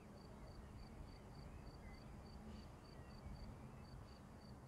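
Faint insect chirping: a thin high-pitched pulse repeating evenly about four times a second, over a low steady rumble.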